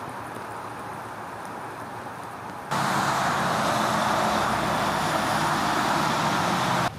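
A quiet, steady hiss of light rain, then a sudden cut about three seconds in to louder traffic on a rain-soaked highway: the even hiss of tyres spraying over wet pavement, with a low hum of engines.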